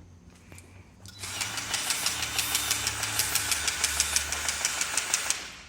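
Grease gun pumping grease into a boat's gimbal bearing. A rapid, even clicking about six times a second over a mechanical hiss starts about a second in and stops after about four seconds.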